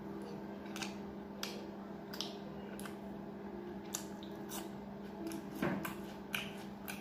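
A person chewing and smacking soft food close to the microphone: irregular wet clicks and squishes of mouth and lips while eating by hand, over a steady low hum.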